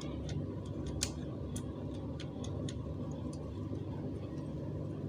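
Light, irregular clicks and ticks from an automatic seat belt retractor being handled and turned over in the hands, its small plastic and metal parts knocking together, over a steady low background hum.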